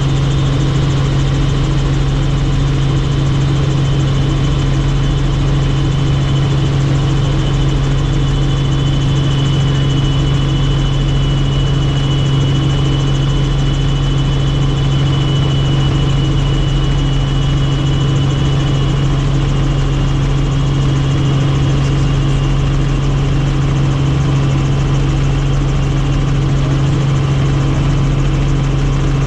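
Helicopter in flight: a loud, steady drone of engine and rotor, with a faint high whine that stands out for several seconds in the middle.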